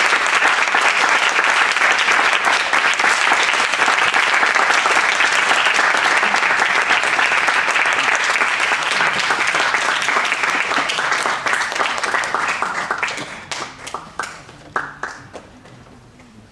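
Audience applauding, a dense clatter of many hands that thins out about twelve seconds in to a few scattered claps and dies away near the end.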